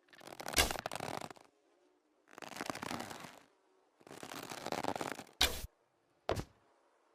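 Manchu bow and arrow sound effect: three rough scraping noises of about a second each, then two short sharp cracks about a second apart near the end.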